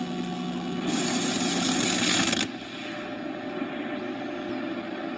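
Steady hiss and low hum from a dual-deck VCR starting tape playback, the hiss louder for the first two and a half seconds before it settles to a quieter steady level.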